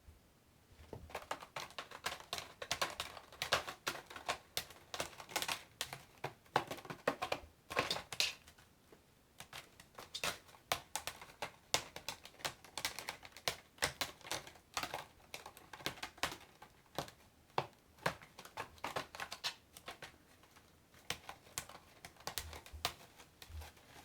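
Crinkly plastic or paper being handled, a fast, irregular run of crackles and clicks that starts about a second in.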